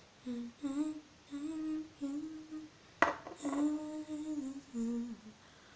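A girl humming a tune in short phrases of held notes. One sharp click sounds about three seconds in.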